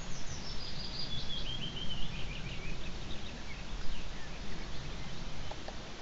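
A small songbird sings one descending phrase of quick high notes lasting about three seconds, over a steady low rumble of background noise.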